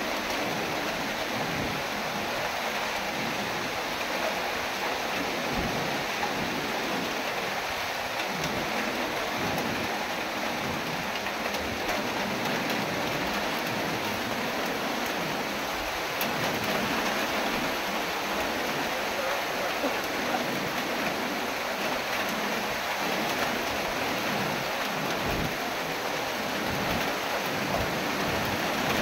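Heavy tropical-storm rain falling in a steady hiss, with gusting wind rumbling underneath.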